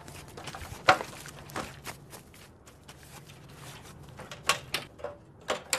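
A string of sharp knocks and taps from a light ladder being handled, leaned against a structure and stepped on. The loudest knock comes about a second in, and a quicker cluster follows near the end.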